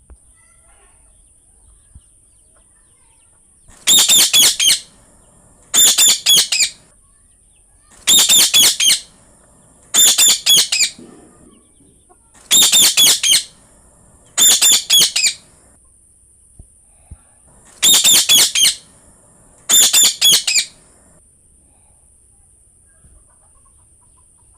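Green parrot calling loudly: eight screeching calls of about a second each, in four pairs with about two seconds between the calls of a pair.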